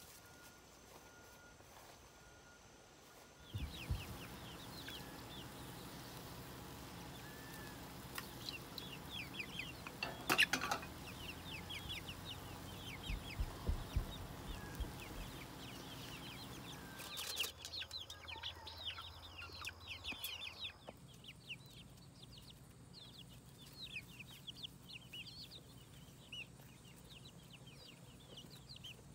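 Hens clucking and giving many short, high calls. A low steady hum runs under them from about four seconds in until about twenty-one seconds, with a few sharp knocks around ten seconds and again a few seconds later.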